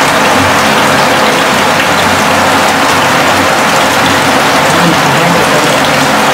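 Bathroom shower spray falling steadily onto a small tarpaulin sheet held over a bucket, a loud, even hiss of water like heavy rain.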